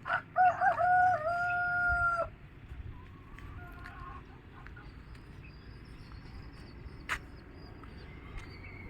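A rooster crowing once, about two seconds long: a few wavering notes that settle into one long held note, then cut off sharply. After it, low outdoor background with a single sharp click about seven seconds in.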